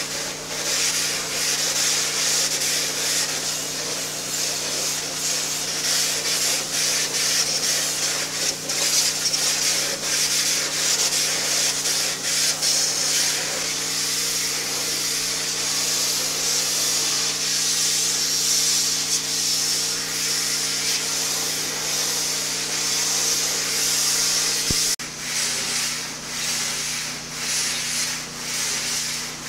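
High-pressure washer spraying a fence and handrail: a steady hiss of the water jet striking the surface over a constant machine hum. The hum shifts suddenly near the end.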